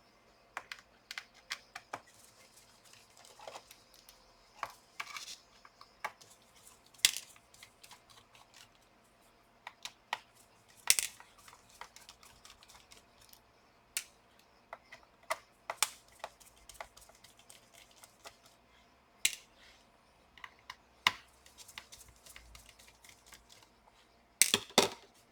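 Irregular small clicks and taps of a screwdriver and tiny screws being handled on a laptop's underside while the back-cover screws are taken out, with a few sharper clacks and a quick cluster of them near the end.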